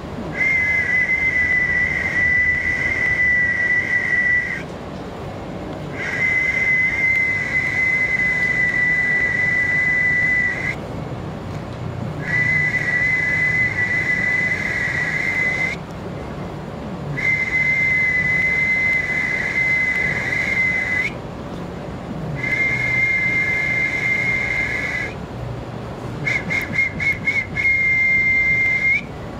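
A man whistling long, steady, high notes into a telephone handset, each held about four seconds with short breath pauses between, then a few quick short notes and one last held note near the end. The whistling is given as a sound treatment meant to relieve chest pain.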